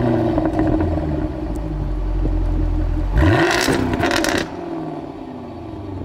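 Jaguar F-Type R's supercharged 5.0-litre V8 running at a high idle just after start-up. About three seconds in it is given one quick rev blip lasting about a second, then drops back to a lower, quieter idle.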